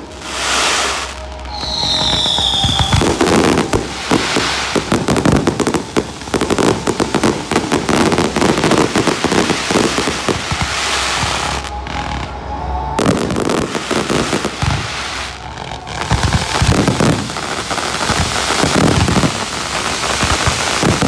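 Fireworks going off: dense crackling and rapid bangs throughout, with a short falling whistle from a whistling shell about two seconds in.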